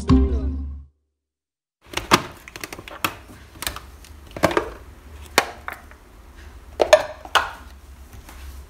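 Plastic clicks and knocks of a mini food-chopper's bowl and dome lid being handled and opened on a table, about a dozen irregular taps with no motor running.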